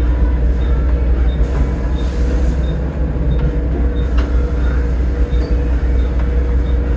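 Volvo B7TL double-decker bus's D7C six-cylinder diesel running under way, heard on board as a heavy low rumble with a steady drone. A faint regular tick comes about every two-thirds of a second, and there is a brief hiss about two seconds in.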